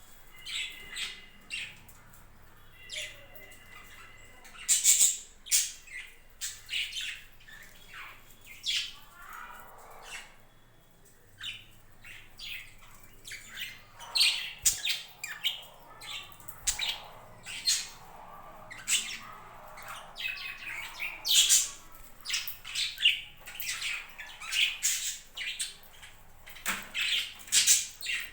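A flock of budgerigars chattering, with many short, irregular squawks and chirps, busier and louder in the second half.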